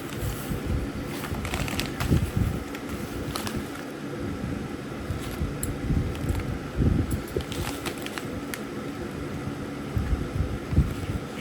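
Irregular rustling, clicks and knocks of packaging and parts being handled during unboxing, over a steady fan-like hum.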